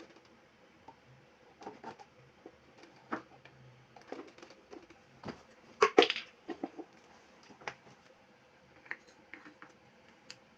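Standing-fan parts being handled and fitted together during assembly: scattered clicks and knocks, the loudest about six seconds in.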